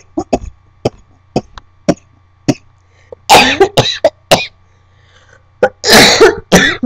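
A woman with cystic fibrosis coughing: a string of short, sharp coughs, then two louder bouts of several coughs each in the second half.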